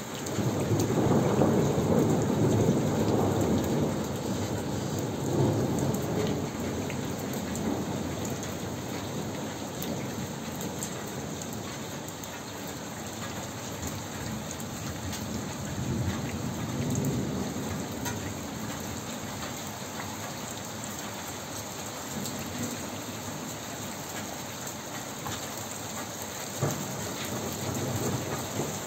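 A long thunder rumble swells in the first second and fades slowly over the next several seconds, with a weaker rumble about midway, over steady rain.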